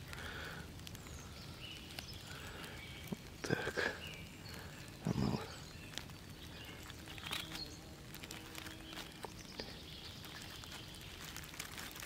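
A small stick scratching lines into the soft white pore surface of an artist's conk (Ganoderma applanatum), giving faint scrapes, with a few louder scrapes or rustles near the middle.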